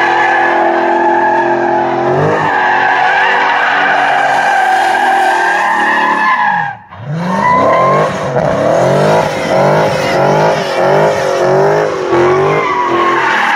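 2020 Dodge Challenger Scat Pack's 6.4-litre HEMI V8 held at high revs while the rear tyres squeal, spinning through donuts. About seven seconds in the revs drop away briefly, then the throttle is pulsed so the engine rises and falls about one and a half times a second over the continuous tyre squeal.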